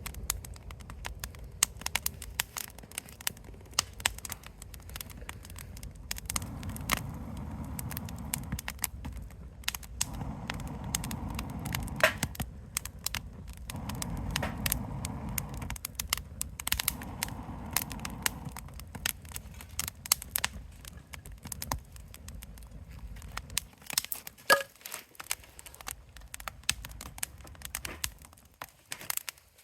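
Campfire crackling, with frequent irregular sharp pops and snaps from the burning wood, over a low rumble that swells and fades several times.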